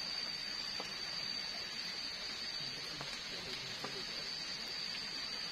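Steady rain falling around the hut, with a constant high thin tone above it. Two faint sharp cracks, about a second in and three seconds in, as a durian's spiny husk is pried apart with a knife.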